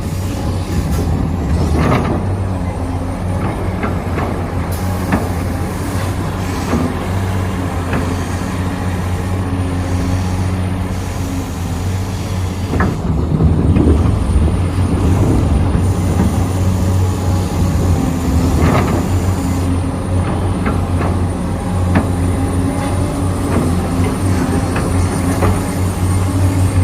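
Radio-controlled construction models running: a steady mechanical hum with occasional short clicks and knocks.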